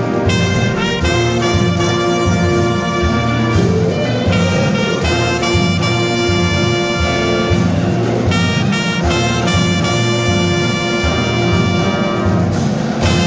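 Marching band playing a brass-heavy piece, trumpets and trombones holding loud chords over a steady drum beat.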